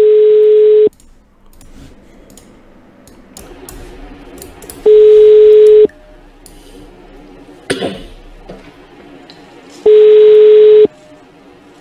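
Telephone ringback tone of an outgoing call ringing unanswered: three one-second beeps of a single steady tone, about five seconds apart. A brief sharp knock comes a little before the third beep.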